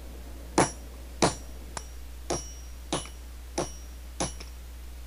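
Four-pound hammer striking a notched bar of 5160 spring steel held in a swage block. There are six heavy blows about two-thirds of a second apart and two lighter taps, each with a brief metallic ring. It is a break test: the tough, thermal-cycled steel takes repeated blows before it snaps.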